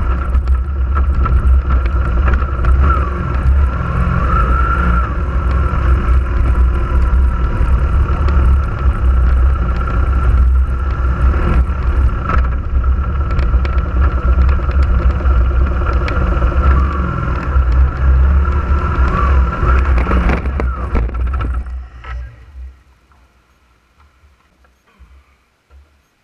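Off-road vehicle driving over a rough dirt trail: loud rumbling running noise with a steady, wavering whine. About twenty seconds in come a few sharp knocks, and shortly after the noise drops away to near silence as the vehicle rolls over onto its side.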